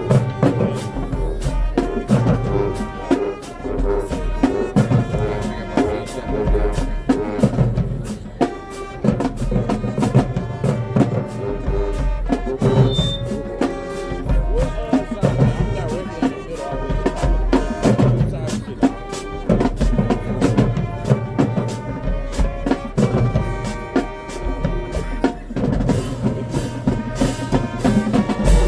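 Marching band playing: brass and drumline together, with steady drum beats under held brass chords.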